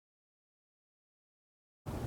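Dead silence with no sound at all, then near the end a steady low rumbling outdoor noise cuts in abruptly.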